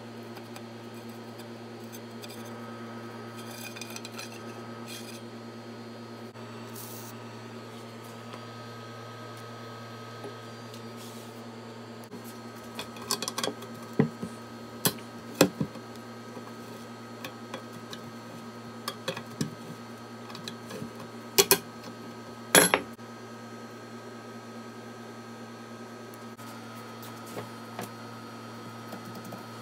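Metal clinks and knocks of a hand tool working on a rusty metal tube frame from a rocking horse, scattered through the middle of the stretch, with the two loudest knocks about two-thirds of the way through. A steady low hum runs underneath.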